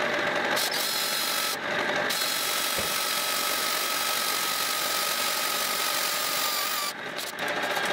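Cordless drill drilling into a small brass fitting held in a lathe chuck, the motor whining steadily under the cutting noise. The drill runs briefly, pauses for about half a second, runs again for about five seconds, and stops near the end.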